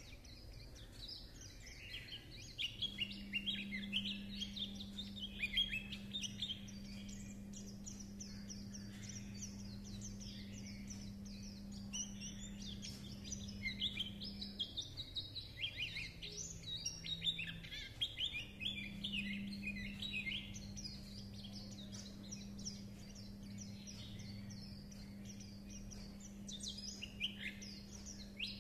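A caged white-eye (khuyên) sings its long rambling chatter song, a fast run of high twittering warbles with brief lulls. A steady low hum runs underneath.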